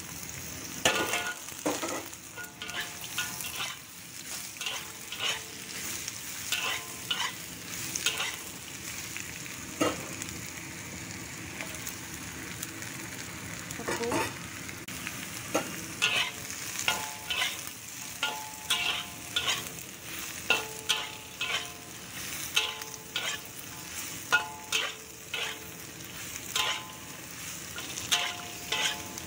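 Metal spatula scraping and knocking against a wok, over and over, as dried mushrooms and bamboo shoots are stir-fried in hot oil, with a steady sizzle underneath. Some scrapes ring briefly off the wok.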